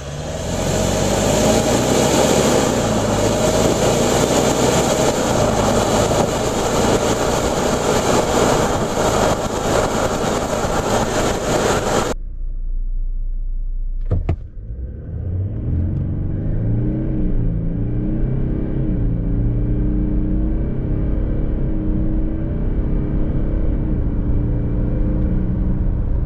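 Two full-throttle runs from a standstill, heard from inside the cabin. First a Toyota Land Cruiser 200's 5.7-litre V8 accelerates hard under loud engine and road noise, and this cuts off about 12 seconds in. After a click, a Land Cruiser 300's 3.5-litre twin-turbo V6 pulls from rest, its pitch climbing and dropping at each of several automatic upshifts.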